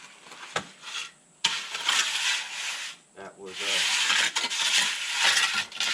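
Loose dry material poured from a bag into a rock-filled step form, making a steady rushing noise in two long pours with a short break between them.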